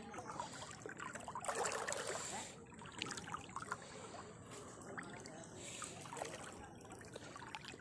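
Shallow floodwater sloshing and trickling, with a louder stretch of about a second a little way in.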